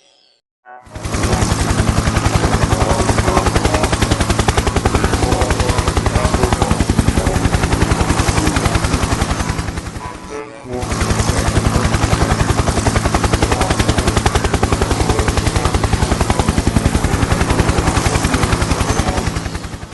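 Harsh, rapidly pulsing distorted noise over a steady low hum, in two long stretches with a short break about ten seconds in. It is intro-theme audio run through heavy digital effects.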